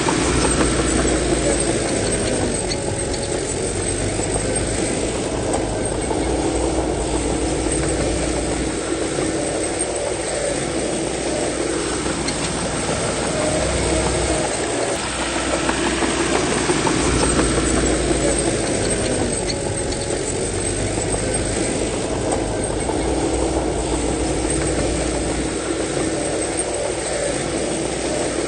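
Bulldozer's diesel engine working under load, its pitch and rumble rising and easing in a repeating cycle of about fourteen seconds.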